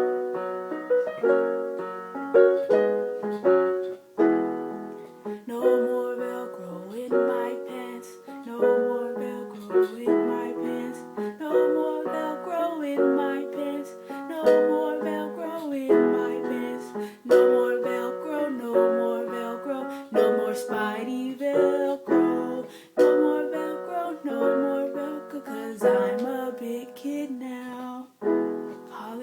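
Instrumental music: chords struck one after another in a steady rhythm, each dying away before the next.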